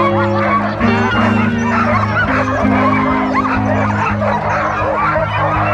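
Background music with held notes, under a dense chorus of many excited sled dogs barking and yipping together as teams wait on the line before a run.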